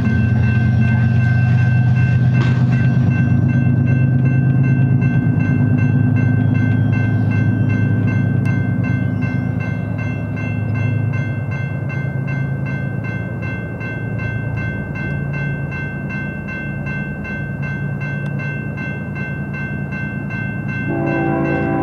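Grade-crossing warning bell ringing steadily in even, rapid strokes as a Union Pacific freight train approaches, over a low rumble. About a second before the end, the locomotive's air horn begins to sound.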